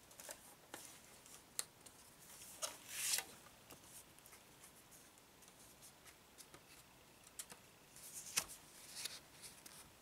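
Paper CD booklet being worked out of a plastic CD case by hand: scattered light clicks, scrapes and paper rustling, loudest around three seconds in and again near the end.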